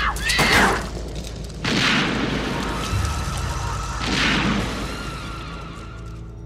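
Film-soundtrack gunshots: a loud shot with a scream cut short about half a second in, then two more heavy booming shots a little over two seconds apart, each with a long echoing tail. A steady high ringing tone and a low music drone run beneath.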